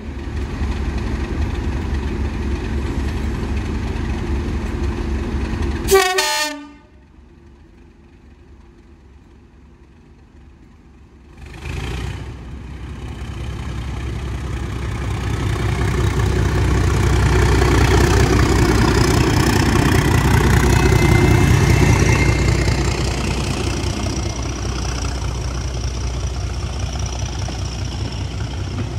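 English Electric Class 37 diesel locomotive 37403 working hard under power, its V12 engine's rumble building to a peak and then easing as the train rolls past. Earlier, a steady diesel rumble ends in a brief sharp blast about six seconds in, followed by a few quieter seconds.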